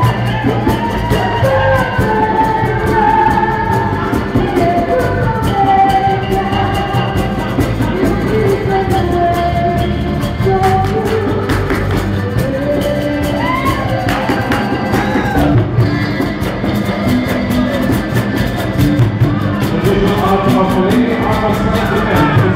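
Live pop-rock band music with a singer's voice carrying the melody over guitar, bass and drums, heard in a large hall.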